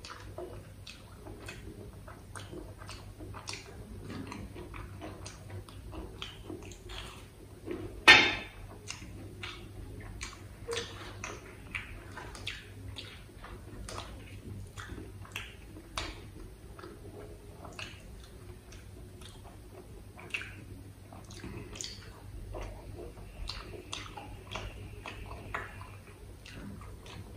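Close-miked eating sounds: chewing and fingers picking up and mixing food on a steel thali, a steady scatter of small wet clicks and smacks. One much louder sharp sound comes about eight seconds in.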